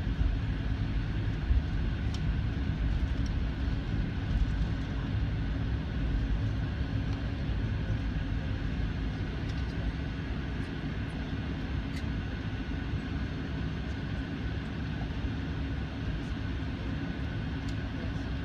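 Airliner cabin noise while taxiing: a steady low rumble of the jet engines at low power with a thin steady whine above it, and a few faint ticks.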